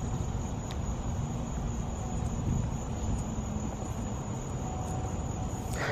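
Steady high-pitched insect drone over a continuous low rumble, with a brief noisy rustle near the end.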